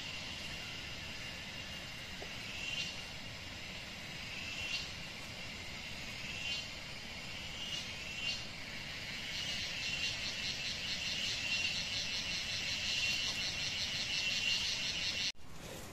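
Forest insect chorus: a steady high-pitched buzz with a short rising chirp every couple of seconds, thickening into a dense pulsing trill from about ten seconds in, then cut off abruptly near the end.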